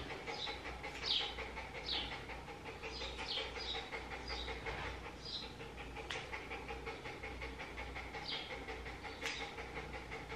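A Maltese dog whimpering in short, high squeaks that come irregularly, over a faint steady hum.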